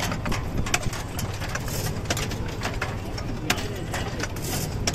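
Onion seedling transplanter working, with a steady low engine hum under many sharp, irregular clicks and clacks from the planting mechanism.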